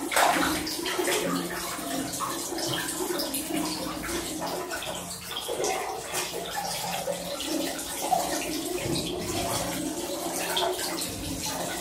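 Bathwater splashing and sloshing as a mink swims and scrambles about in a filled bathtub, in many small irregular splashes.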